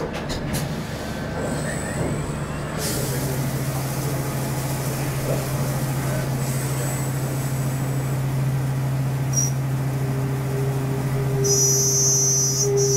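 Spinner U-620 CNC machining center running: a steady low hum sets in about three seconds in, a higher steady tone joins near ten seconds, and brief high hissing bursts come near the end.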